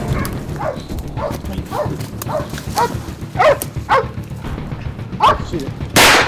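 Tracking dogs barking and baying at a bayed-up buck: a run of short barks, each falling in pitch, about two a second. Near the end comes one loud, sharp gunshot as the deer is dispatched.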